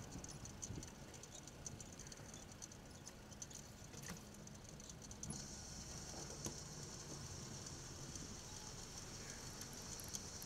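Faint riding noise from a bicycle rolling on asphalt: a steady hiss that grows a little stronger about halfway, under a low rumble, with light scattered ticking and rattling.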